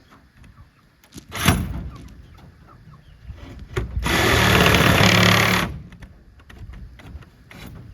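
Cordless power drill driving a screw: a short blip about a second and a half in, then one steady run of about a second and a half near the middle.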